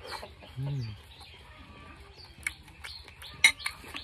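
Small birds chirping throughout while someone eats from a bowl: a short low hummed "mm" about half a second in, then a few sharp clicks near the end, the loudest a metal spoon striking the ceramic bowl.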